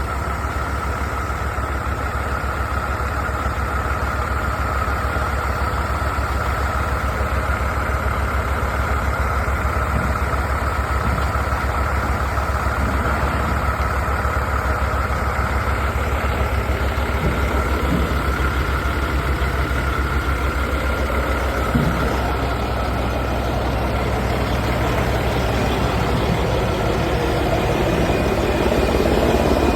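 Semi truck's diesel engine idling steadily, with a steady high whine over it that fades about two-thirds of the way through.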